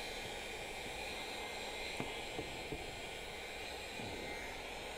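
Steady hiss of background noise, with a few faint light clicks about two seconds in.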